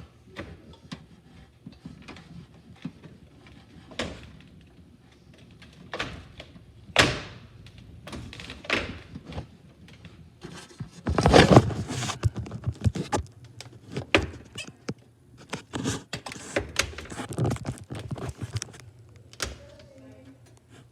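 Irregular knocks, taps and clunks of things being handled, with a louder rattling clatter about eleven seconds in.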